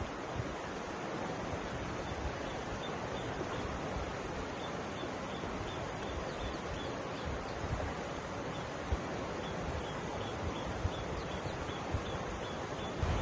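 Mountain river flowing: a steady rush of water, with occasional low wind buffeting on the microphone. A faint, high chirp repeats about twice a second through the middle.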